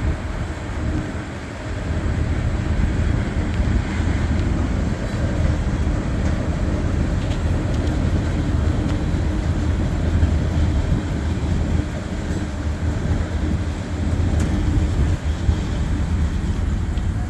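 Norfolk Southern freight train's cars rolling past on the rails, a steady low running noise that carries on without a break.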